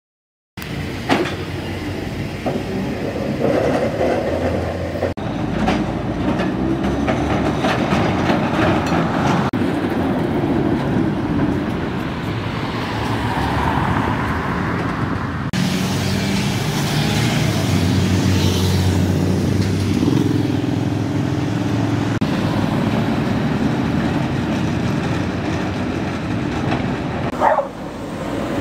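Vintage Woltersdorf tramcar running past on street track. It is heard in several short clips that change abruptly from one to the next.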